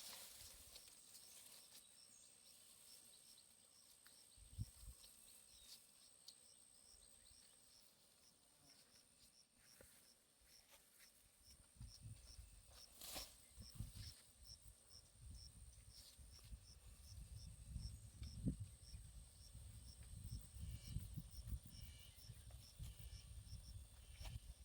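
Faint insect chirping in a regular high pulse, about two and a half chirps a second, over a thin steady high whine. From about halfway in, low rumbling noise joins, with a few knocks.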